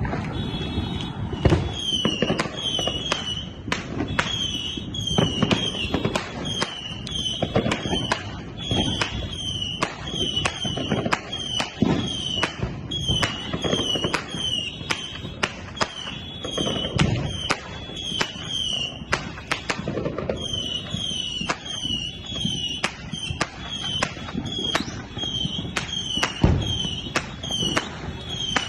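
Consumer fireworks and firecrackers going off in rapid, uneven pops and bangs, with deeper booms now and then. A high, falling chirp repeats about twice a second throughout.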